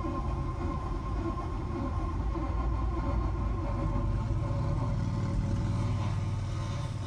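Car driving with a steady low rumble and a constant high-pitched grinding, scraping tone from the right front wheel area, a noise of unknown cause.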